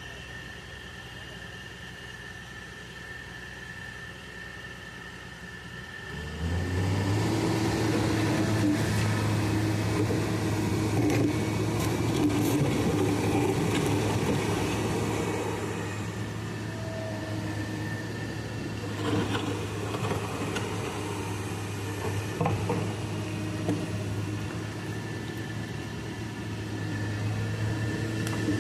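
Excavator diesel engine running, then revving up about six seconds in and holding at higher revs as the machine works, with a few short knocks from the digging.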